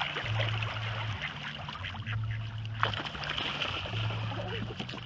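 Lake water lapping and splashing right at the microphone as mallard hens paddle and splash past, with a low steady hum that comes and goes underneath and a single sharp click near the middle.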